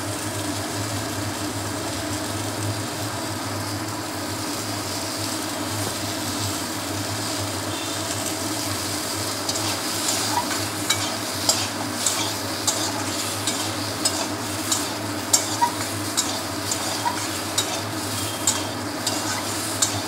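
Mango pieces sizzling in hot mustard oil in a steel kadai, stirred with a steel spatula. From about halfway through, the spatula clicks and scrapes against the pan again and again.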